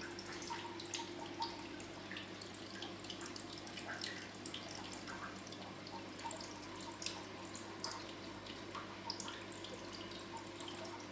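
Aquarium water trickling and dripping, with many small irregular splashes, over a steady low hum.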